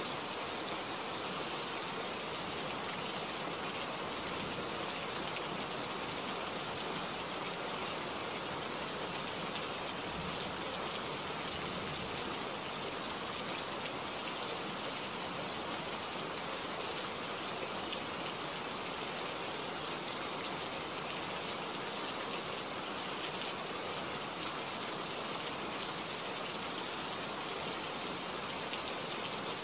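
Steady, even rainfall with no distinct thunderclap.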